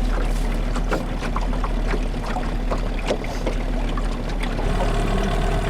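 Motorboat under way: a steady rush of water splashing along the hull over a low rumble.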